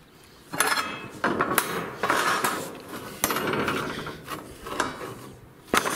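Steel rebar being bent with a homemade pipe bender on wooden formwork planks, then handled: a series of metal scrapes and clanks, with a sharp knock about three seconds in and another near the end.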